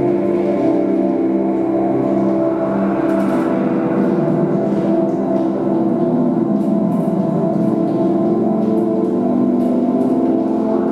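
Ambient drone music played live on analog synthesizers: thick, sustained low and middle tones layered and slowly shifting, with faint scattered noises above them.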